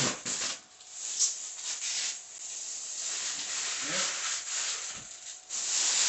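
Plastic packaging wrap being pulled and crumpled off a new refrigerator, with an uneven hissing rustle and short crackles that dip and pick up again.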